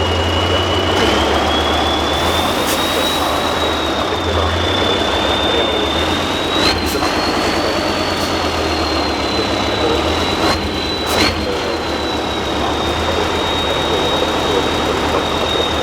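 Tatra 6x6 truck's diesel engine working hard, a loud steady drone with a high whine above it that slowly rises and falls. Three sharp knocks come about halfway through.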